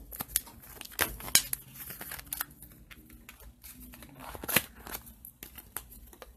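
Paper and plastic packaging being handled and opened: crinkling and tearing, with scattered sharp clicks and snaps, the loudest about a second in and again past four and a half seconds.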